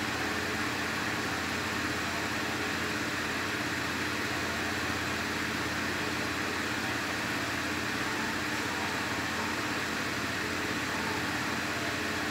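A steady mechanical hum with hiss, holding one level throughout, with a few steady low tones in it.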